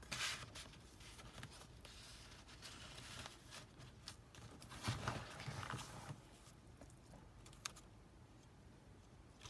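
Paper and cardstock rustling and sliding as the pages and inserts of a handmade junk journal are handled and turned, with a few light taps and ticks; the busiest handling is about halfway through.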